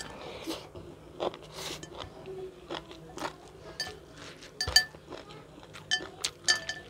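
Close-up eating sounds: a person chewing and biting, with crisp crunches and wet mouth clicks at an irregular pace. The loudest crunch comes about two-thirds of the way through.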